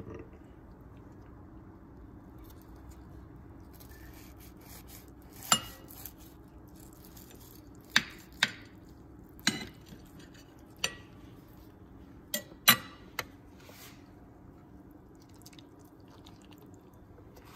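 Chef's knife clinking sharply against a glass dish about eight times while cutting through a baked stuffed bell pepper, over a faint steady hum.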